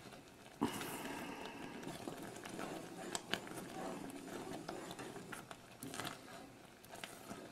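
Wooden spoon stirring thick, boiling chocolate fudge syrup in a nonstick saucepan: faint scraping and bubbling, starting about half a second in, with a few light clicks of the spoon on the pan. The syrup has cooked down very close to candy stage.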